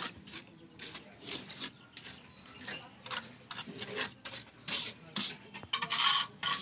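Small steel trowel scraping and smoothing wet cement mortar on a concrete door jamb in repeated short strokes, growing louder toward the end.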